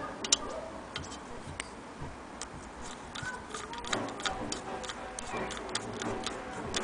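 Small irregular metal clicks and scrapes, coming more often in the second half, as a screwdriver turns the screw holding the crank handle on a Willcox & Gibbs sewing machine's iron handwheel.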